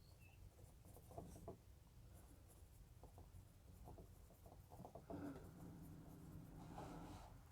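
Faint scratching of a 0.5 mm mechanical pencil lead writing on paper in short irregular strokes, busier in the second half.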